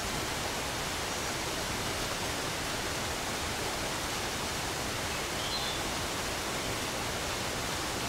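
Steady, even hiss with no other sound except a faint, short high chirp about five and a half seconds in.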